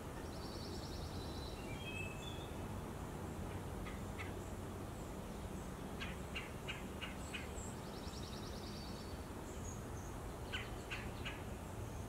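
Small wild birds singing and calling: a short, fast high trill heard twice, with short chirps and quick runs of sharp notes in between, over a steady low background rumble.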